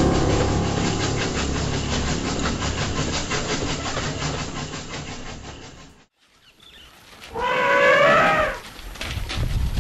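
A train runs with a rhythmic clatter and fades out. After a moment's silence an elephant gives a single trumpet lasting about a second, rising then falling in pitch.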